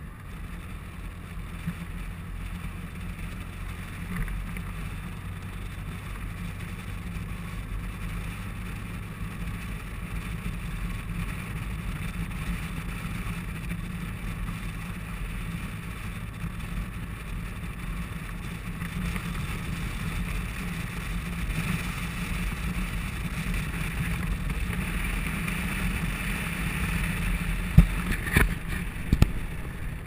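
Touring motorcycle cruising at highway speed: a steady engine drone under wind and road noise, growing a little louder in the second half. Two sharp knocks near the end.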